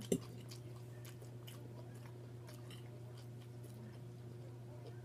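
Chewing and mouth clicks of people eating, soft and scattered, over a steady low hum. There is a short sharp sound just as it begins.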